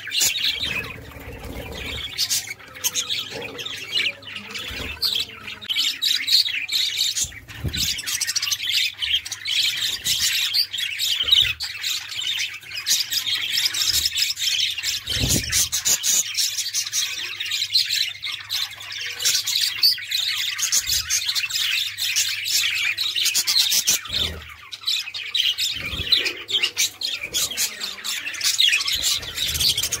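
A colony of budgerigars chattering, a dense, unbroken mix of many overlapping chirps and warbles, with a few brief low thumps.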